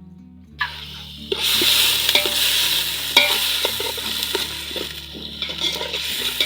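Food frying in hot oil in a saucepan: a loud sizzle that starts about a second in, with the clicks and scrapes of a spoon stirring the pan.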